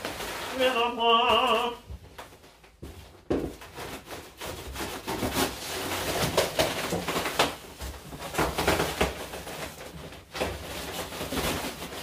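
A man's wavering sung phrase ends within the first two seconds. Then come repeated knocks, clicks and scrapes of an old wooden sideboard being unpacked and handled.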